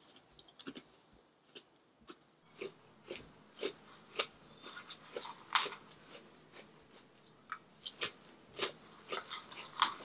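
A person chewing a mouthful of crunchy cereal from a bowl, in a run of irregular short crunches and clicks with the spoon working in the bowl.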